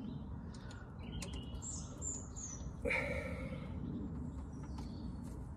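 Outdoor birdsong: small birds chirping and tweeting, with a short run of high, falling chirps about two seconds in. A steady low rumble runs underneath, with a few faint clicks.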